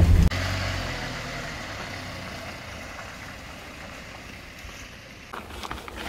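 A motor vehicle running, its engine and road noise fading steadily away over about five seconds; near the end it gives way to a few faint ticks.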